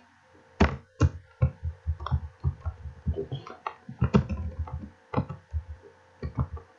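Computer keyboard typing: a run of uneven key strikes, several a second, with short pauses between bursts.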